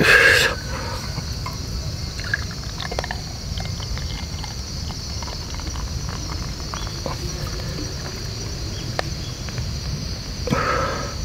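A beer can cracked open with a short, loud hiss, then beer poured from the can into a glass. Insects chirp steadily throughout.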